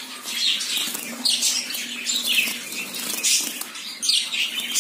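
Bengal finches (society finches) calling with short, high chirps that fall in pitch, repeated every half second or so, while a hand tries to catch one of them inside a wire cage.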